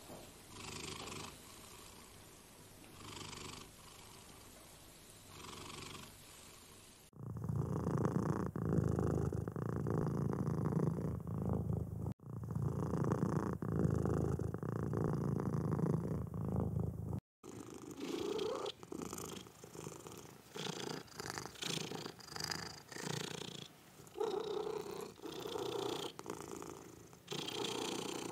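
Domestic cats purring close up, in three clips joined by abrupt cuts. First comes a soft purr that swells with each breath, then a much louder, steadier purr from about seven seconds in, and from about seventeen seconds a purr rising and falling about once a second.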